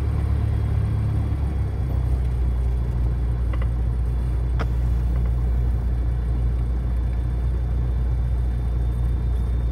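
Cessna 172R's four-cylinder Lycoming piston engine idling steadily, a continuous low drone heard from inside the cabin, with a couple of faint clicks midway.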